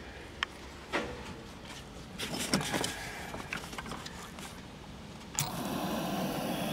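Small clicks and rustling from hands on a TV's wiring and circuit board, then a sudden click about five seconds in as the Sony Trinitron KV-1722 portable colour TV is switched on, followed by a steady hiss from the set.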